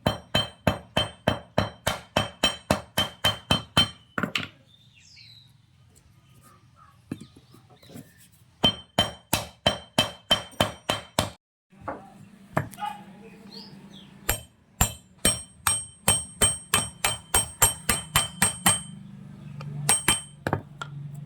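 Hammer blows on steel parts during tractor brake work, struck in quick runs of about four a second, each blow ringing metallically. There are three runs with pauses between them and a couple of last strikes near the end.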